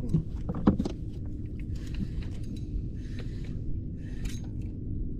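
A steady low rumble under a few sharp clicks and knocks in the first second, then several short rustling bursts: an angler handling fishing line and tackle in a small boat.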